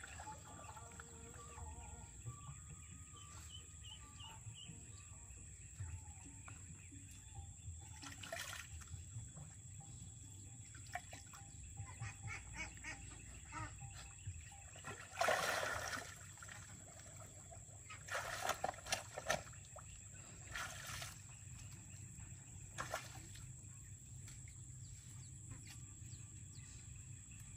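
Faint steady high-pitched insect drone with a few short bursts of splashing water. The loudest burst comes about halfway through and a cluster follows a few seconds later.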